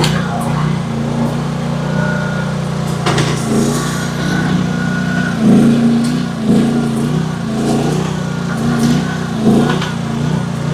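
AGT H12 mini excavator's engine running under working load, its note swelling and sagging every second or so as the hydraulics take up the strain. A few sharp knocks sound over it.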